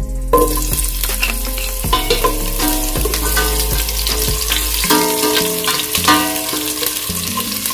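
Sliced onions hitting hot oil in a stainless steel pot and sizzling, with the sizzle starting suddenly as they go in, then stirred with a spoon.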